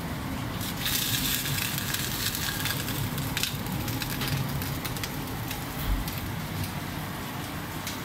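WD-12GLE hood-type commercial dishwasher running with a steady low hum. From about a second in until about three and a half seconds, a loud hissing, crackling noise with scattered clicks rides on top.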